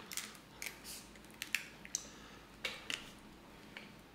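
Snow crab leg shells being cracked and pulled apart by hand: an irregular scatter of small sharp cracks and crackles, a dozen or so.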